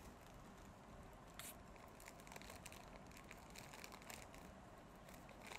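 Faint crinkling and rustling of a plastic goody bag and wrapped sweets being handled while the bag is filled, with a soft crackle about a second and a half in.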